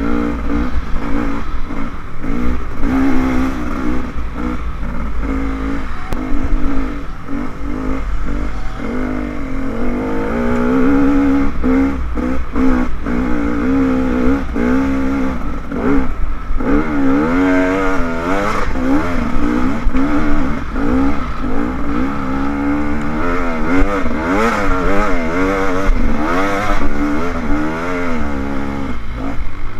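Dirt bike engine revving up and down over and over as the bike is ridden up a dirt trail, heard from a helmet-mounted camera, with low wind rumble on the microphone and some clatter from the bike.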